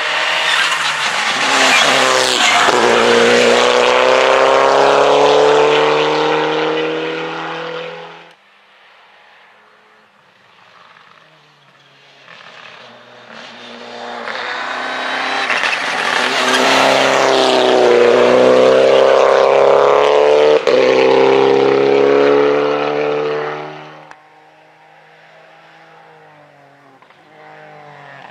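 Two Mitsubishi Lancer Evolution rally cars pass one after the other, each turbocharged four-cylinder accelerating hard out of the corner with a rising engine note and then dropping away; a single sharp pop comes late in the second pass. Another car's engine is heard more faintly near the end.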